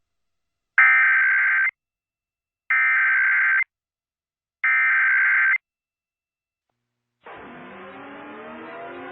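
Emergency Alert System SAME header: three bursts of buzzy digital data tones, each about a second long with a second of silence between, which encode the start of an AMBER Alert activation. About seven seconds in, a musical swell rises in.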